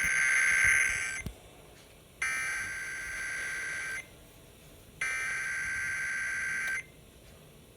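Emergency Alert System SAME header: three bursts of buzzing digital data tones, each nearly two seconds long and about a second apart, the first the loudest, announcing a flash flood warning over the radio.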